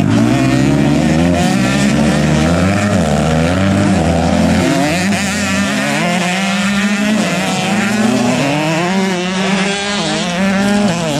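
Several motocross dirt bikes racing. Their engines rev up and down over and over and overlap as the bikes power through the corners.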